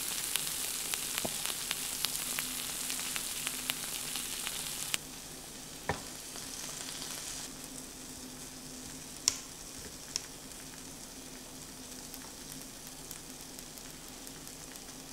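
Beef and garlic cloves sizzling in a cast-iron grill pan, a steady hiss full of fine crackling. The sizzle drops suddenly to a quieter level about five seconds in, and a few sharp clicks come through later.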